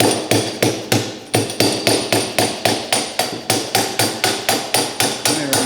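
Rapid, even hammer taps on metal, about four to five a second, each with a short ring: a pin being driven through a tractor part that is under spring tension.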